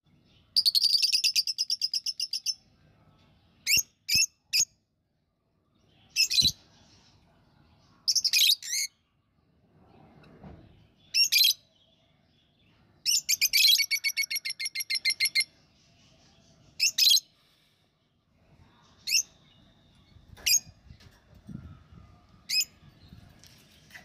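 Budgerigars chirping: two long, rapid, pulsing trills, one near the start and one about halfway through, with short sharp chirps scattered in between.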